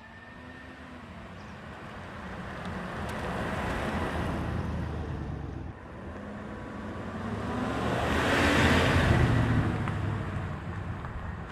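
A 2024 Chevy Silverado 1500 pickup with a 5.3-litre V8 drives past. Engine and tyre noise grow louder as it approaches, break off suddenly about halfway through, then build again to the loudest point as it passes and fade as it pulls away.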